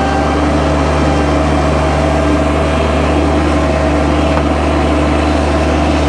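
Mini skid steer's engine running steadily at a constant speed, with a steady low hum.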